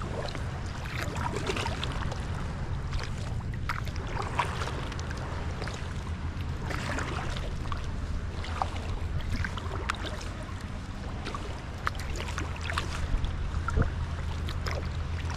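Double-bladed kayak paddle dipping into and pulling through seawater, with splashes and drips at each stroke, over a steady low rumble.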